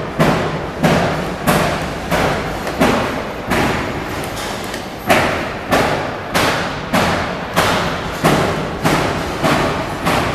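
Needle detector's belt conveyor running, with a regular mechanical knock about three times every two seconds.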